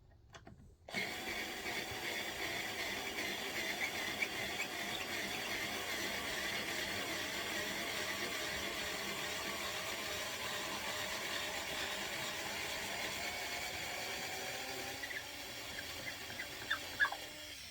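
Power drill running steadily for about fifteen seconds as it backs a screw out of the bed frame, its whine wavering in pitch. It slows near the end, then stops with a few sharp clicks as the screw comes free.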